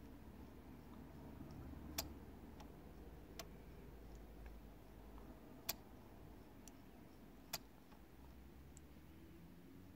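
Sharp clicks from an opened CD player's optical pickup mechanism, four louder ones a second or two apart among a few fainter ticks, over a faint low hum.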